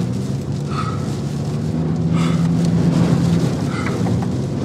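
Tornado rear flank downdraft wind, probably over 100 mph, buffeting a moving car, heard from inside the cabin with the windows up. The car's engine runs under it, with a steady hum standing out through the middle.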